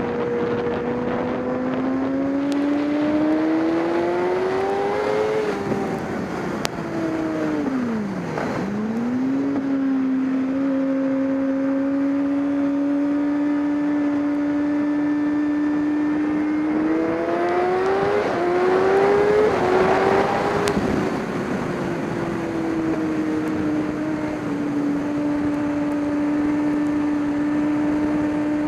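Racing engine running at high, steady revs under load. The pitch climbs twice as it accelerates and drops sharply and briefly about eight seconds in as the throttle lifts, then picks back up.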